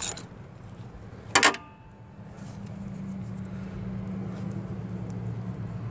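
Ratchet wrench working a thermostat housing bolt: a click at the very start and one sharp, ringing metallic stroke about a second and a half in. A low steady hum comes up after that.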